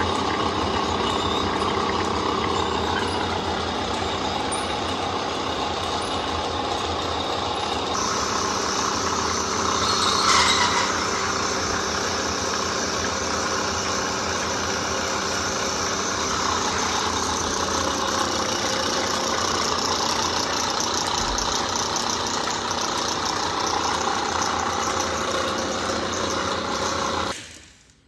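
Old camelback drill press running steadily under power with its self-feed engaged, drilling. It swells briefly louder about ten seconds in and cuts off abruptly near the end.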